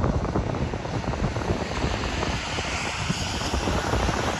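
Wind buffeting the microphone in a low, uneven rumble over outdoor traffic noise, with a hiss that swells in the middle as a bus passes on the road below.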